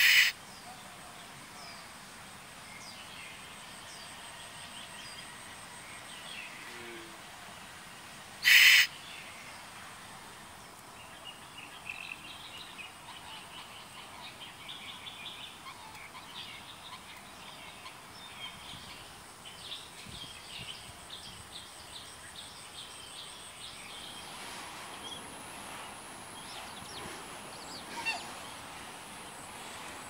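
Juvenile Asian koel giving two short, harsh, screeching calls about eight and a half seconds apart. Faint chirping of small birds runs through the second half.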